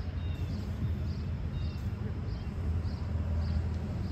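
Outdoor background noise: a steady low rumble with faint, high chirps repeating about every half second to two-thirds of a second.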